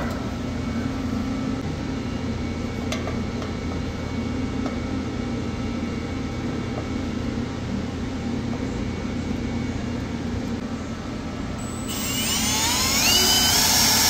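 A steady background hum, then about twelve seconds in a power drill bores into the toaster oven's thin sheet-metal housing, the bit whining with wavering high pitches until it stops.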